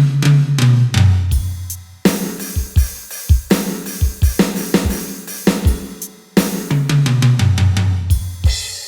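Drum and percussion sounds from a Roland SPD-30 Octapad: a busy pattern of kick, snare, hi-hat and cymbal hits, with low held bass notes near the start and again later. Near the end the playing stops and a cymbal rings out.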